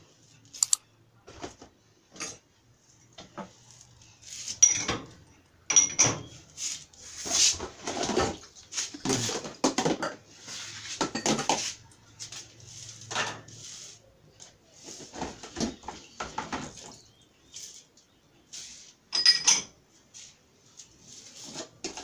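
Dishes and kitchenware clinking and clattering at irregular intervals as they are set into a dishwasher's racks, a few of the clinks ringing briefly.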